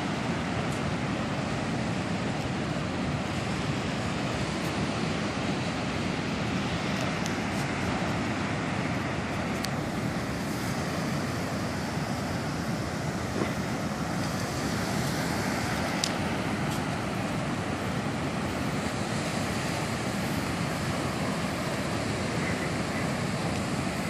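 Steady wind and breaking surf, with wind rushing over the microphone.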